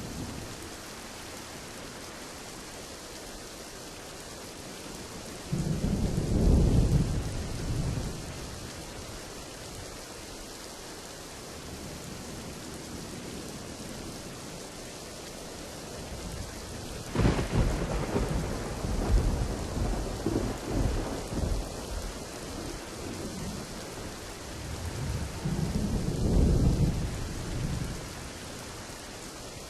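Steady rain with thunder: a low rumble a few seconds in, a sharp thunderclap just past the middle that rolls on for several seconds, and another long rumble near the end.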